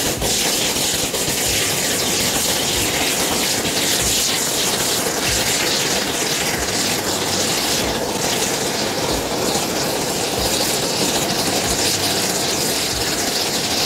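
Chocolate burning violently in molten potassium chlorate: a loud, steady rushing hiss of flame with faint irregular crackles, as the chlorate rapidly oxidizes the sugar and fat.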